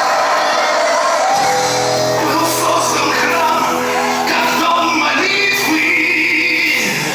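Live rock-opera music from a stage performance: the band playing, with the cast singing over it from about a second and a half in.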